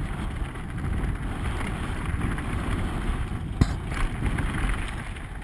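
Wind buffeting a helmet-mounted camera over the rumble and rattle of a downhill mountain bike running fast over a dusty, rocky trail, with one sharp knock about three and a half seconds in.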